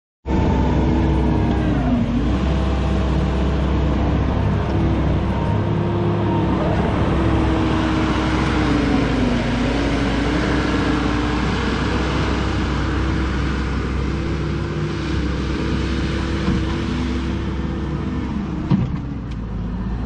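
Case TV450 compact track loader's diesel engine running hard as it pushes dirt, cutting in abruptly just after the start. Its engine note dips twice, about two seconds in and again near the middle, as it takes load. A single sharp knock comes near the end.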